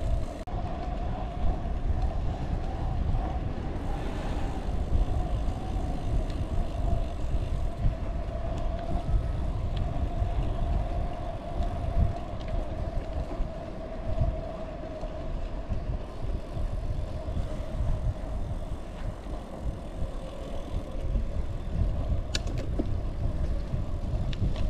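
Wind buffeting the camera microphone on a moving road bike, over the rolling noise of its tyres on the trail, with a steady hum. A single faint click comes a little before the end.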